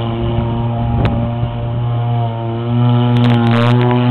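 Small two-stroke engine of a radio-controlled model boat running at a steady, high pitch. It gets quieter for a while, then louder again about two-thirds of the way through.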